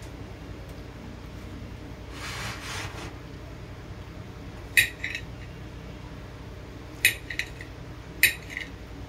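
Kitchen knife cutting dragon fruit on a ceramic plate: a brief scrape about two seconds in, then the blade clinks sharply against the plate three times, each clink followed by one or two lighter taps.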